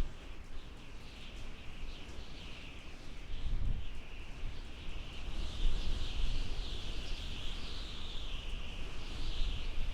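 Wind howling, a high wavering whistle that rises and falls over low rumbling gusts that swell and fade.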